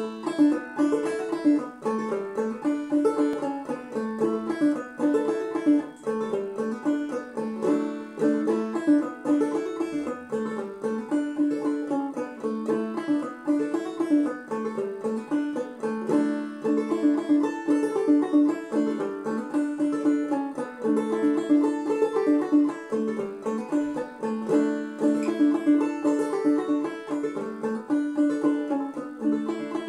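Five-string banjo played clawhammer style in a modal aEADE tuning: a steady, unbroken run of plucked notes that starts suddenly at the outset.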